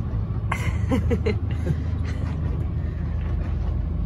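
Steady low drone of a motor yacht's engine heard from inside the wheelhouse while under way. About half a second in come a few short squeaky sounds that bend in pitch, with a click or two, lasting about a second and a half.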